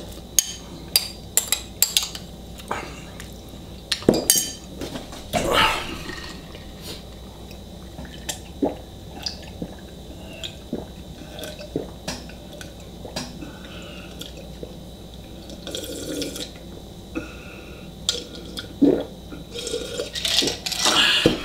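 A metal spoon clicking and scraping against a ceramic bowl as the last of the baked beans is scooped and eaten, then swallowing and gulping as cola is drunk from a glass.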